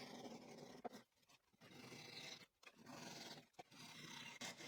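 Faint, slow handsaw strokes through pine, trimming excess ends flush: about four soft swishes with brief pauses between them.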